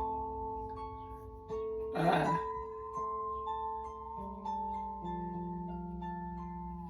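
Haken Continuum Slim 70 playing a fretless harp preset, its pitch rounding switched off: overlapping plucked, harp-like notes ring on and move to new pitches every second or so. A short noisy swish comes about two seconds in.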